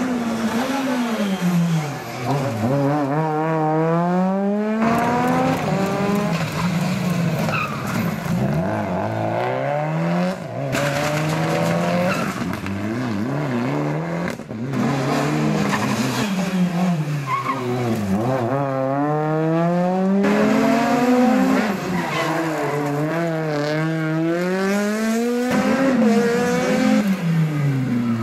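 Rally car engines, one car after another. Each one's pitch falls as it slows for a tight corner, then climbs hard and drops back at each gear change as it accelerates away.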